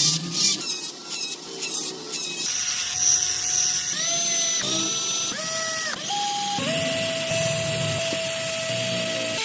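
Rasping strokes on wood for about two seconds, then a small electric rotary carving tool running steadily, its pitch dipping and recovering several times as it is pressed into the wood.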